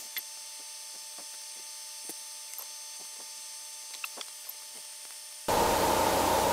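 Small, light clicks and taps of metal tools and tiny antenna parts being handled on a workbench. About five and a half seconds in, a loud, steady hiss comes in suddenly.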